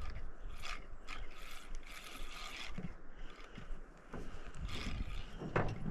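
Fishing reel being cranked, a rattling mechanical whirr in short, uneven spells as a lure is retrieved, louder near the end.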